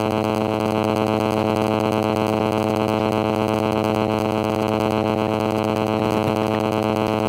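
Steady droning background music: a sustained synth chord held without change.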